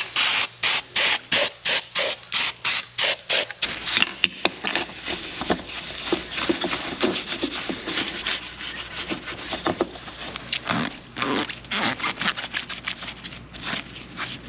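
Rapid back-and-forth scrubbing, about four strokes a second, on a small instrument-cluster gauge part. About four seconds in it gives way to irregular rubbing with squeaks and small clicks of parts being handled.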